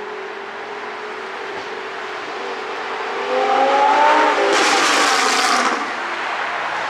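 Audi R8's 5.2-litre V10 with an ECU tune for exhaust pops, revving up with a rising engine note, then a loud, harsh rushing burst lasting about a second before the sound eases off.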